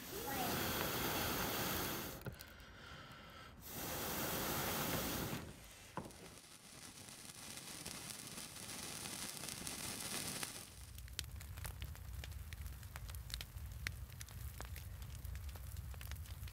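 Blowing hard on embers under a pile of dry twigs, two long breaths in the first five seconds. About ten seconds in, the twigs have caught and the fire crackles with many sharp snaps over a low rumble of flames.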